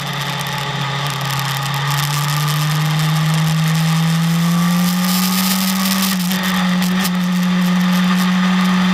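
BMW S1000RR inline-four sportbike engine pulling steadily on track. Its note climbs gradually over a few seconds, then holds, with brief dips about six and seven seconds in.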